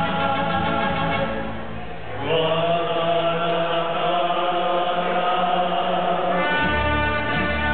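Mariachi band performing: men's voices singing together over violins and guitars, holding long notes. The sound dips briefly about two seconds in, then a new chord is held, and the bass comes in stronger near the end.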